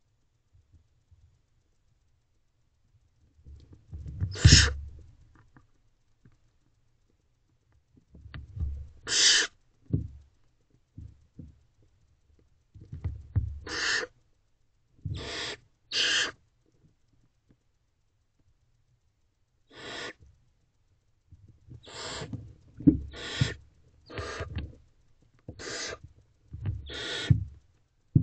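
Barn owlets giving short, raspy begging hisses, about eleven of them at irregular intervals, sparse at first and coming more often in the second half. Low scuffling and rustling in the nest litter go along with many of the calls while the owls feed on a rodent.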